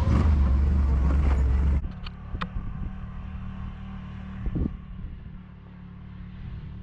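Side-by-side UTV engine sound, loud for the first couple of seconds, then dropping abruptly to a quieter, steady running hum with a few light clicks.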